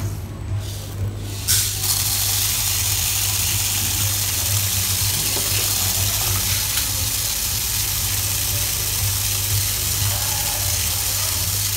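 A loud, steady rushing hiss that starts suddenly about two seconds in and holds even throughout, over a low hum.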